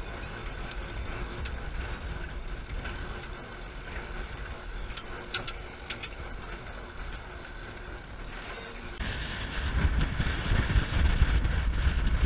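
Steady wind and water noise aboard a sailing yacht, with a few sharp clicks about five to six seconds in. About nine seconds in it gets much louder, with wind buffeting the microphone as the hull drives through spray.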